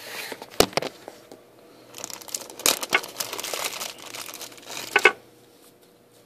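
Clear plastic zip bag crinkling and rustling as it is handled, with a few sharp clicks and knocks. The crinkling starts about two seconds in and stops abruptly after a couple of loud clicks about five seconds in.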